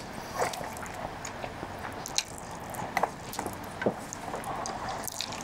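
A person slurping and chewing a mouthful of Chapagetti black-bean-sauce instant noodles, with irregular wet clicks and smacks and a couple of short slurps.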